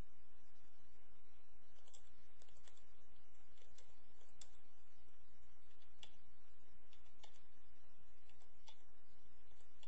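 Computer keyboard keys pressed one at a time, scattered single clicks about one or two a second starting about two seconds in, over a steady low hum.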